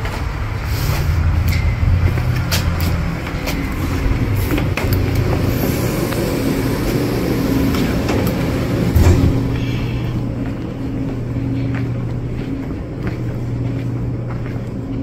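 Footsteps and knocks from walking through an entrance, over a steady low hum, with a louder knock about nine seconds in as a door is passed.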